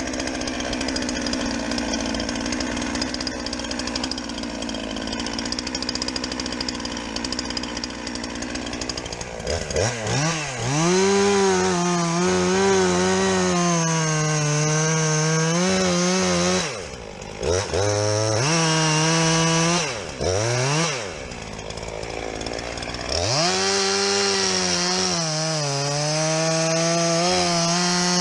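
Two-stroke chainsaw running, then revved hard and cutting wood with a wavering pitch from about a third of the way in, easing off twice before bearing down again.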